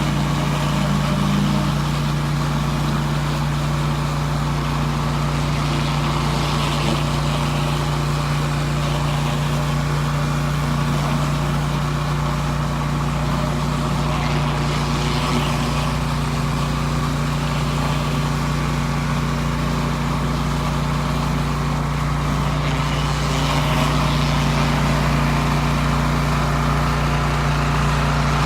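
Pressure washer running steadily under load with a constant low hum, and the hiss of water spraying from the surface cleaner onto concrete.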